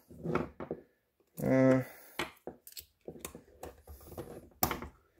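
Light, irregular metal clicks and scrapes of a steel hook pick prying at the stiff shield on a Thorsen 77J 3/8-inch ratchet head, the shield refusing to slide off. There is a brief vocal sound about a second and a half in.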